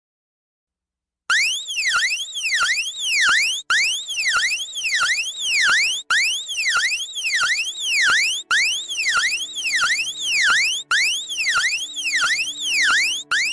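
Electronic emergency-alert siren tone: a high pitch sweeping rapidly up and down about twice a second. It starts a little over a second in and loops with a brief break about every two and a half seconds.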